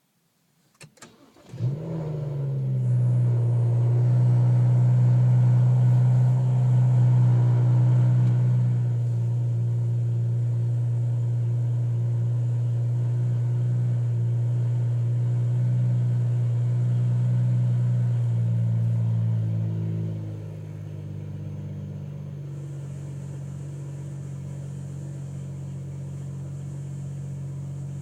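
Car engine cranked and catching about a second and a half in, after a couple of clicks, then idling steadily. About twenty seconds in the idle steps down and runs quieter.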